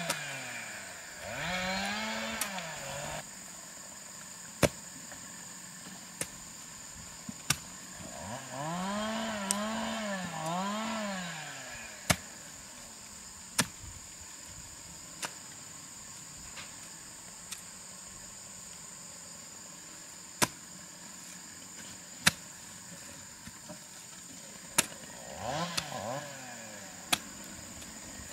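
Sharp single strikes of a hand hoe into soil, roughly one every one and a half seconds. A small engine revs up and falls away a few times, three quick revs in a row about nine seconds in, over a steady high drone.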